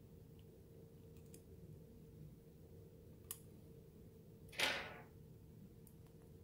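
Handling noise from a large flashlight being turned over in the hands: a faint click about three seconds in, then a short scraping rub a second and a half later, over a low steady hum.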